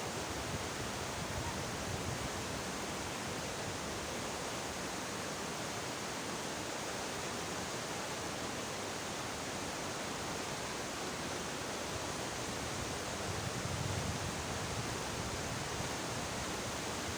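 Kunhar River's fast water rushing with a steady, even roar.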